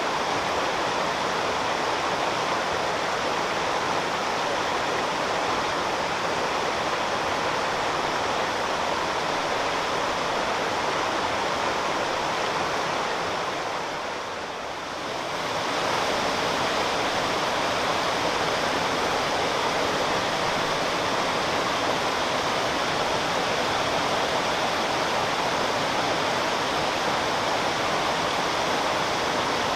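Steady rushing of a waterfall, the Fudō no Taki, dropping briefly in level about halfway through before returning.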